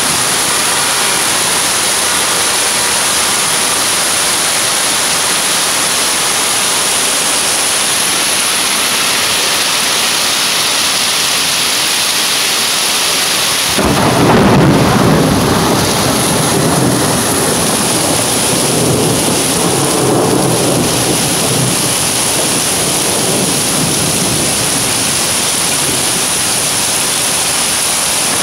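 Torrential rain pouring steadily, an even hiss. About halfway through, a deep rumble of thunder comes in and rolls on, swelling a few times over the rain.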